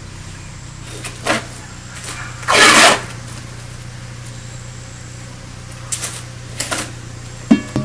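Plastic cling film being handled and pulled from its roll: a few short rustling bursts, the biggest a little before three seconds in, over a steady low hum.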